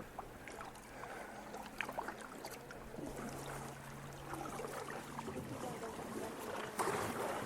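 Kayaks being paddled on a shallow creek: scattered small splashes, drips and light knocks of paddles against the boats, with a louder rush of water near the end. A faint steady low hum runs underneath for a few seconds in the middle.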